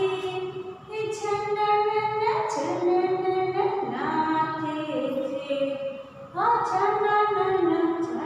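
A woman singing a Gujarati children's action song alone, with no instruments, in long held notes. She pauses briefly about six seconds in.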